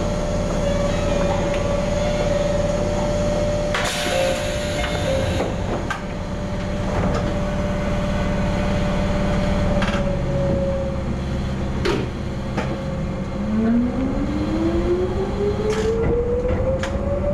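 Electric train of the Mizuma Railway 1000 series (ex-Tokyu 7000 series), heard from the cab. It first stands with a steady hum and a burst of hiss about four seconds in. It then pulls away, its traction-motor whine rising in pitch from about two-thirds of the way through, with a few clicks near the end.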